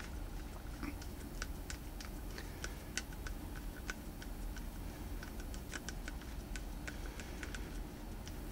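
Hand screwdriver turning a rear grip screw into a Grendel P12 pistol frame: faint, irregularly spaced light clicks as the bit and screw turn.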